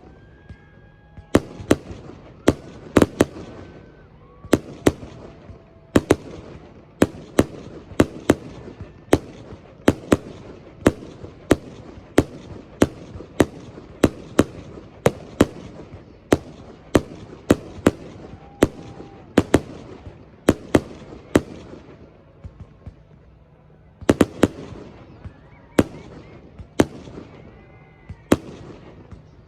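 Fireworks show: aerial shells bursting in quick succession, about one to two sharp bangs a second, with a brief pause about two-thirds of the way through before the bangs resume.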